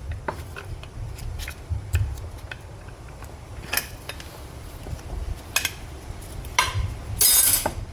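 Metal clinks and taps of hand tools and steel automatic-transmission internals being handled during a teardown, with a short scraping rasp near the end.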